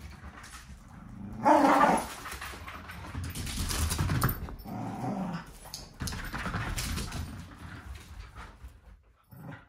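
A Scottish terrier making play noises, growling and whining while it mouths a toy, with a short, loud outburst about a second and a half in.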